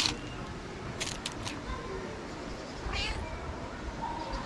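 Calico cat meowing in short calls, the clearest starting about four seconds in, with a few sharp clicks about a second in.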